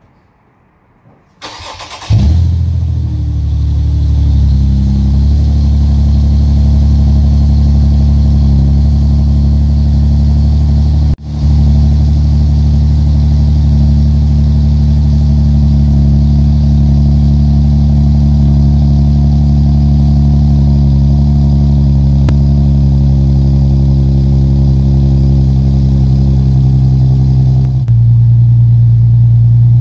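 Infiniti G37's VQ37VHR V6, running through Megan test pipes in place of its catalytic converters, cranks briefly and catches about two seconds in, then idles loudly and steadily. Near the end the idle note changes and turns deeper.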